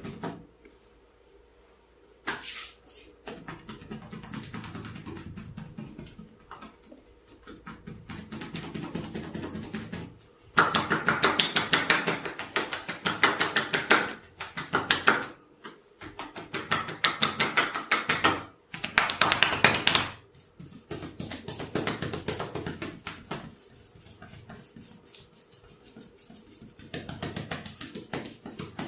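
Fast percussive massage strokes on the head and shoulders: a rapid patter of taps, many a second, coming in bursts of a few seconds with short pauses, loudest around the middle.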